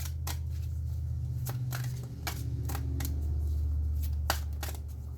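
A tarot deck being shuffled by hand: an irregular run of quick card clicks and slaps. A steady low hum runs beneath.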